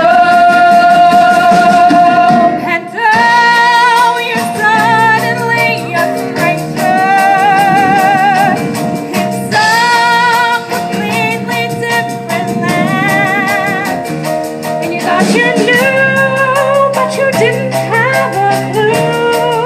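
Live musical theatre number: a group of young voices singing, with long held notes with vibrato, over a live band with a drum kit.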